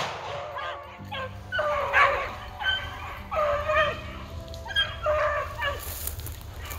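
Rabbit hounds baying: a run of repeated, drawn-out cries that sag in pitch at their ends, about one a second. This is the sound of dogs running a rabbit's trail.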